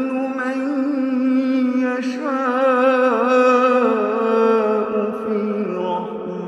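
A man's voice chanting Quranic recitation in a slow, melodic style, holding one long drawn-out phrase whose pitch wavers and bends in the middle.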